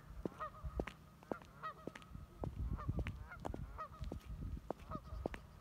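Geese honking, a series of short calls every half second or so, with scattered sharp clicks and a low rumble underneath.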